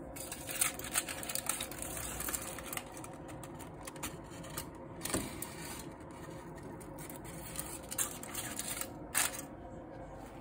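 Crumpled aluminium foil crinkling and crackling as it is lifted off a pot of stewed chicken and laid back on, in irregular rustles with a few sharper crackles near the start and near the end.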